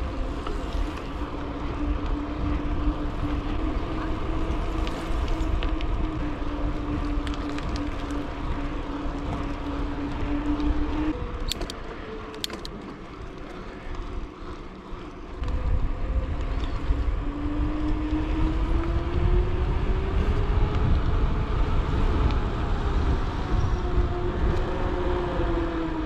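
Wind buffeting the microphone of a moving bicycle, with a steady hum whose pitch wanders. Both fade for a few seconds about midway, then return, the hum gliding up in pitch.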